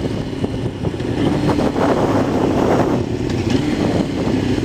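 Yamaha R6 sport bike's inline-four engine running steadily as the motorcycle rides along at cruising speed.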